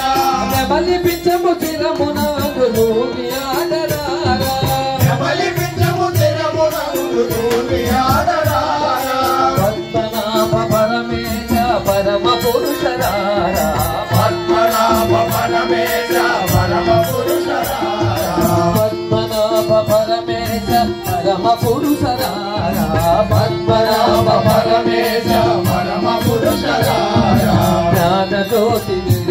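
Telugu devotional sankeerthana: group bhajan singing to a steady, even beat of percussion, amplified through loudspeakers.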